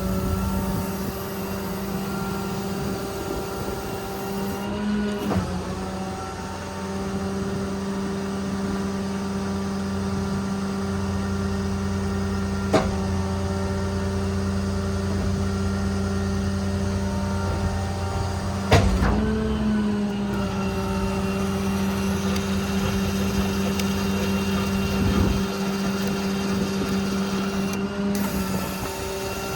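Steady mechanical hum from the Ram 5500 work truck's running diesel and PTO-driven hydraulic equipment, dipping slightly in pitch about 5 s and 19 s in. Two sharp clicks, about 13 s and 19 s in.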